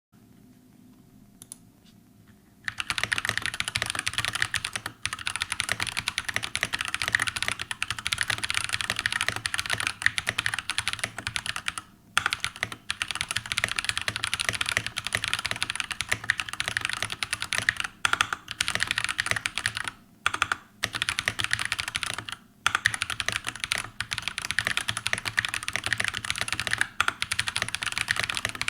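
Fast typing on a mechanical keyboard with Drop Holy Panda tactile switches: a rapid, continuous stream of keystrokes that starts about three seconds in, broken by a few brief pauses.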